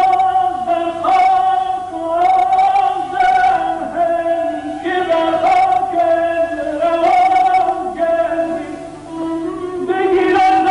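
Male vocalist singing Persian classical avaz in the Shur mode, holding long notes that waver and break off every second or two.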